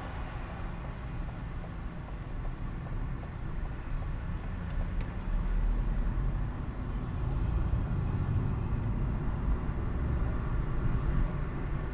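Low rumble of a car's engine and tyres in slow city traffic, heard from inside the cabin through a dashcam microphone; it grows louder about halfway through.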